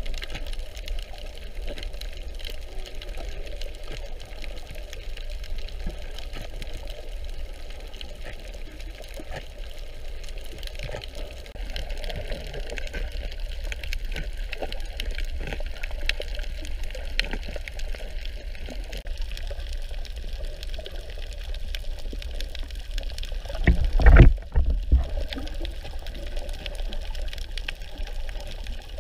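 Underwater sound on a coral reef picked up by a submerged camera: a steady wash of water with many faint scattered clicks. About 24 seconds in there is a brief loud low-pitched burst of water noise.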